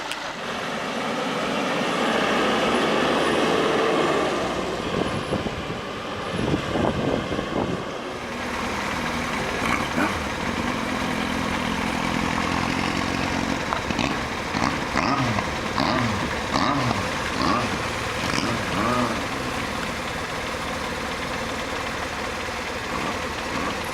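Motorcycle engines running close by, with a loud rush of engine and road noise for the first several seconds. After that an engine runs steadily, and its pitch goes up and down from about the middle on.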